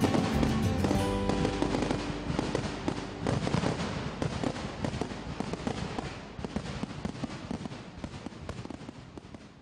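Fireworks display: many rapid sharp pops and crackles from bursting shells. The tail of background music ends about a second in, and the whole sound fades steadily down toward the end.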